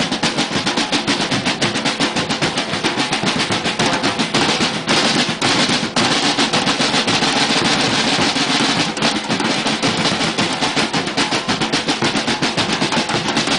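Football supporters' drum band rehearsing: bombos (bass drums) and snare drums beaten together in a rapid, dense rhythm.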